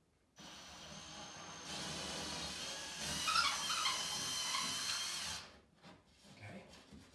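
Cordless drill running as it enlarges a pilot hole in drywall to take a molly anchor. The motor starts slow, speeds up about a second and a half in, gets louder as the bit cuts into the wall around the middle, and stops after about five seconds.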